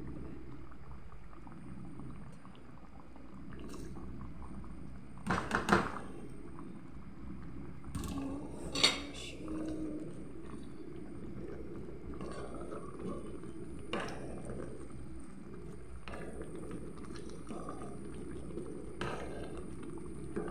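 Pot of chicken broth simmering, with a wooden spoon knocking against the pot as purslane leaves are stirred in: a quick run of three knocks about five seconds in, a louder single knock near nine seconds, and lighter ones later.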